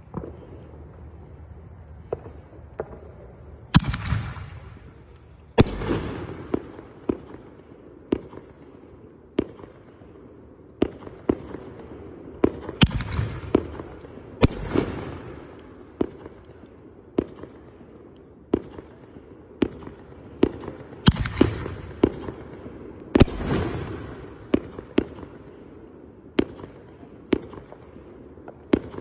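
Raccoon Neon Skies firework firing a long run of shots: sharp bangs about once a second, with several louder booms that ring out.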